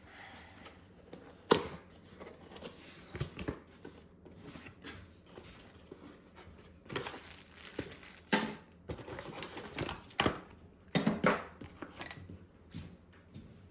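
Irregular clicks, knocks and rustling as a door handle set and its packaging are handled, with the sharpest knock about a second and a half in and a run of knocks later on.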